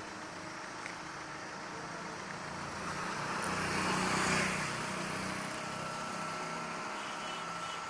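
A motor vehicle's engine passing by: it grows louder to a peak about four seconds in, then fades away.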